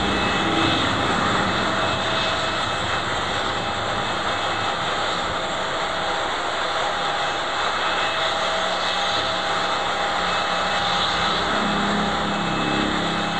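Airliner jet engines running steadily on the runway: a continuous rushing noise with faint, steady whining tones over it.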